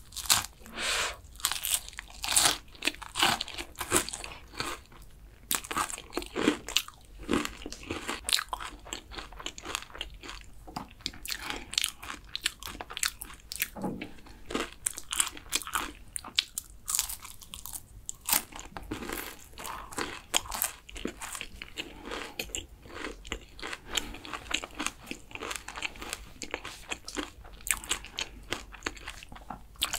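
Close-miked biting and chewing of flaky, caramelized kouign-amann pastry, with many crisp, crackling crunches coming irregularly throughout.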